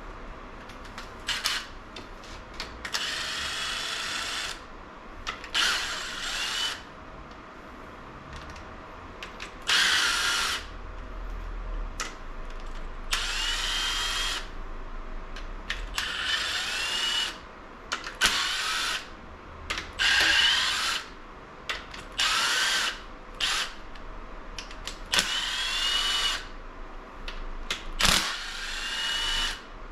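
Handheld power drill-driver run in about a dozen short bursts of a second or so, its whine rising as it spins up each time, taking bolts out of an engine being torn down.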